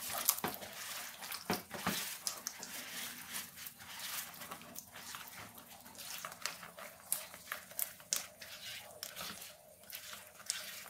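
A hand squishing and stirring wet, sticky pão de queijo dough of scalded tapioca starch and egg in a bowl: a steady run of irregular wet squelches and little clicks as the egg is worked into the dough.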